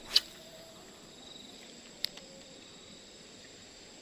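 Insects chirring steadily in the background, with a thin high tone. A sharp swish-like click about a quarter second in is the loudest sound, and a shorter click follows about two seconds in.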